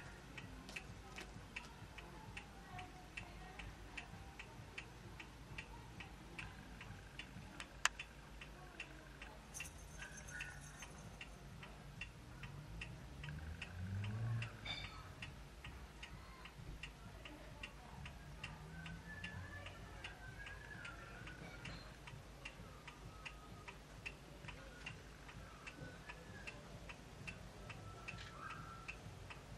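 Faint, steady ticking at about two ticks a second, with a single sharp click about eight seconds in and a short low rumble around fourteen seconds in.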